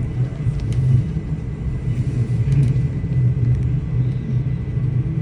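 Train running: a steady low rumble with a thin steady high whine and a few faint clicks.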